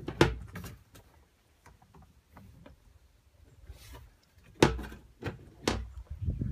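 A few sharp knocks: one at the start, then three within about a second and a half near the end, over a faint low rumble.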